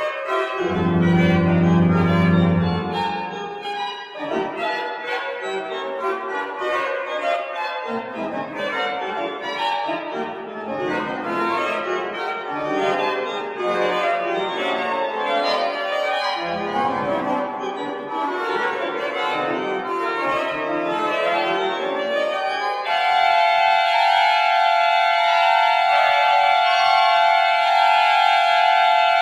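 Pipe organ playing a busy passage of many quick notes, with deep pedal bass notes near the start, then a loud sustained chord held for the last several seconds.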